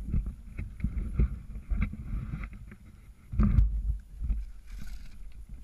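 Branches and undergrowth rustling and scraping as a person crawls through brush, with irregular low thumps of movement and rubbing close to the microphone. A heavier thump comes about three and a half seconds in.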